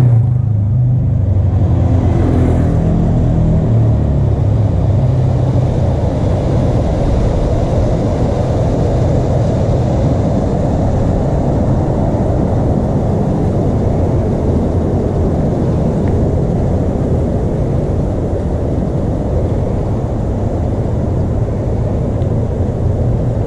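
A motorbike engine runs for the first few seconds and then fades out, over a steady low rumble that lasts throughout.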